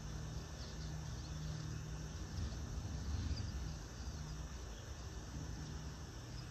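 Outdoor ambience: a steady low rumble that swells slightly midway, with faint scattered high chirps over it.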